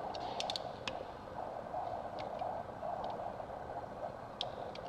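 Light, scattered clicks and taps of a screwdriver working a glued-in stator and its wiring loose on an E-TEC 800 two-stroke crankcase, over a steady background hum. The clicks come in a small cluster about half a second in and again near the end.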